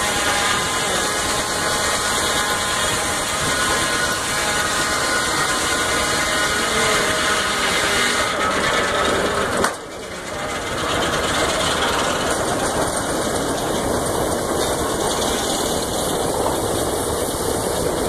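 Steam-powered circular sawmill running: a loud, steady mechanical din with a ringing whine from the saw in the first half, dipping briefly about ten seconds in before resuming.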